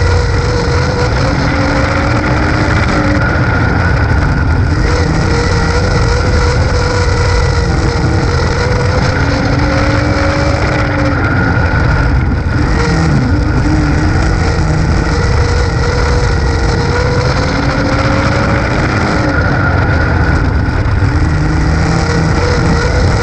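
Dirt-track race car engine running hard at racing speed, heard from inside the cockpit. The engine note climbs and drops every few seconds as the car goes down the straights and lifts into the turns, over a heavy rumble and the rush of wind and dirt.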